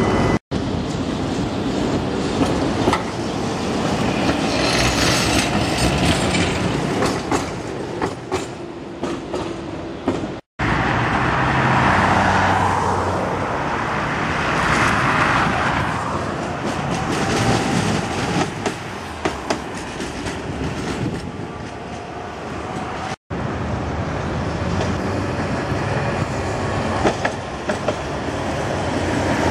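Tatra T3 trams running past on street track amid city traffic, with scattered clicks from the wheels over the rail joints. The sound drops out completely for an instant three times, at cuts between clips.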